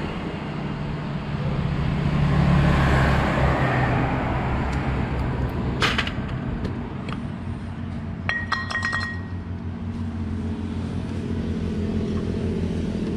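Metal tools and engine parts clinking as a motorcycle cylinder head is taken apart. There is one sharp clink about six seconds in and a quick cluster of ringing clinks near nine seconds, over a steady low rumble.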